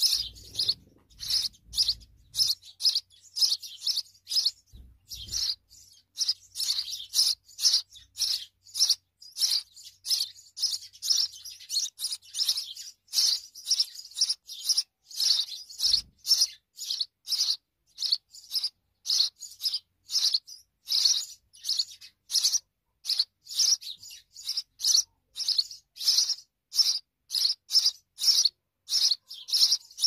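House sparrow nestlings begging with rapid, repeated short high cheeps, about three a second and unbroken, as an adult feeds them at the nest. A few soft low thumps come in the first few seconds.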